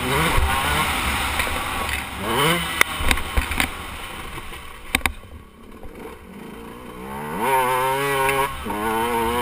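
KTM 125 two-stroke motocross bike being ridden hard on a dirt track: the engine revs up, drops off the throttle for a couple of seconds midway, then revs up again and holds. A few sharp knocks are heard around the middle.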